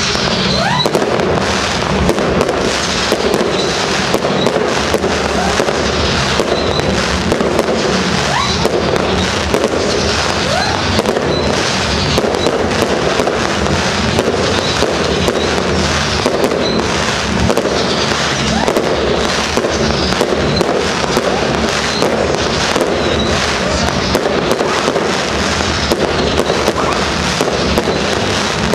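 Fireworks display and firecrackers going off in a dense, continuous barrage of bangs and crackle, with a few rising whistles of launching rockets about a second in.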